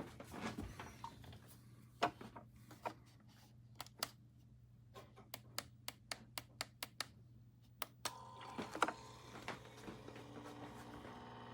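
Pod coffee maker being handled with light clicks and taps, then about eight seconds in a steady mechanical hum starts as the machine begins running.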